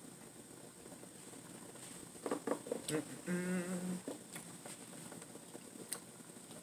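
Eating boiled crawfish: a quick run of wet smacking and sucking clicks about two seconds in, then a short hummed "mmm" of enjoyment, followed by a few soft clicks.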